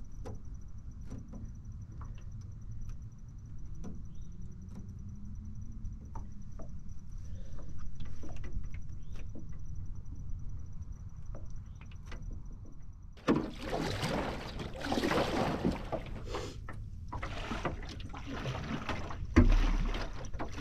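Paddle strokes in the water beside a small aluminum jon boat: a run of swishing, splashing strokes over the last several seconds, with a sharp knock near the end. Before that, a low rumble with scattered small knocks.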